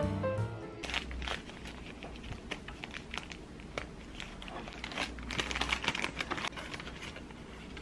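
Brown kraft-paper bakery bag being unfolded and opened by hand, the paper crinkling in irregular crackles that are thickest about five to six seconds in.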